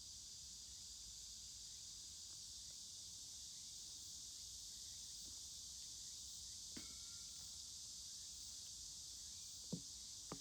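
Faint, steady high-pitched chorus of insects, with a couple of soft ticks near the end.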